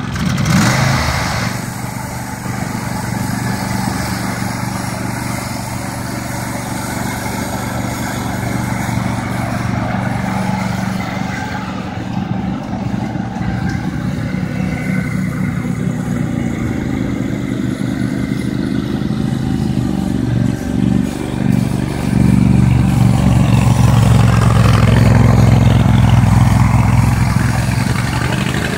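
McCulloch riding lawn mower's engine running steadily as the mower is driven across a lawn, growing louder near the end as it comes back close.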